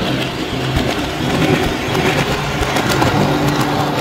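Williams O-gauge GG1 model locomotive and its plastic passenger cars running on three-rail track toward the microphone: a steady rolling noise of metal wheels on the rails.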